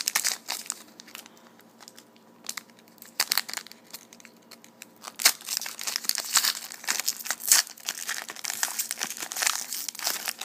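Foil wrapper of a trading-card pack being torn open and crinkled in the hands. Sparse crackles for the first few seconds, then dense crinkling from about five seconds in.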